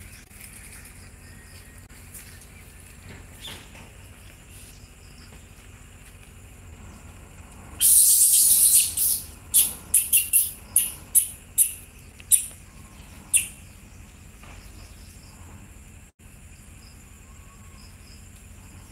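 Loud, high-pitched insect buzzing about eight seconds in: one long buzz of about a second, then a string of about ten short buzzes over the next five seconds, over a faint steady background.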